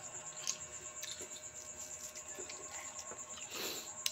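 Steady high-pitched trilling of a cricket, with small clicks and mouth sounds of eating and a short breathy noise about three and a half seconds in.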